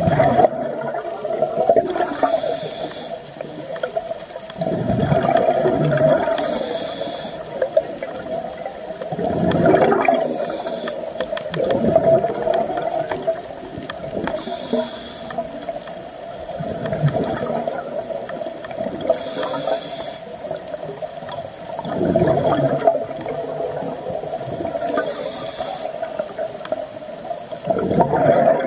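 Scuba diver breathing through a regulator underwater, six breaths about every four to five seconds: a high hiss on each inhale, then a gurgling rush of exhaled bubbles. A steady hum runs underneath throughout.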